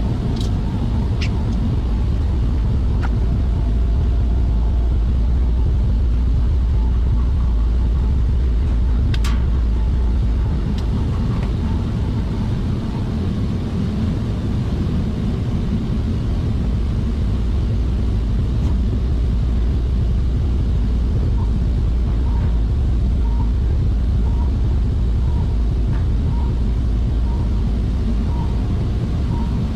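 Steady low rumble and hum of running machinery, with a few light clicks and knocks.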